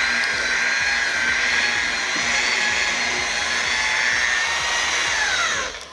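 Chicago-brand electric rotary polisher, set to about 1800 rpm, running steadily as its foam pad buffs wax on a car's painted hood. Near the end it is switched off and its whine falls in pitch as the pad spins down.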